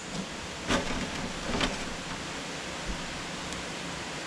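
A utensil clinking in a metal skillet twice, a little under a second in and again about a second later, over a steady rushing hiss.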